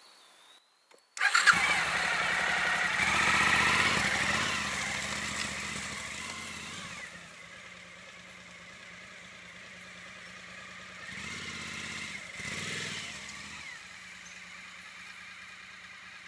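Suzuki V-Strom motorcycle engine starting about a second in and revving as the bike pulls away, fading with distance. It picks up again briefly about two thirds of the way through, then cuts off suddenly at the end.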